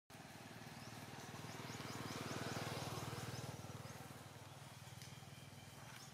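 A faint, low, pulsing engine drone that swells to its loudest about halfway through and then fades, with a string of faint, high, short chirps in the first half.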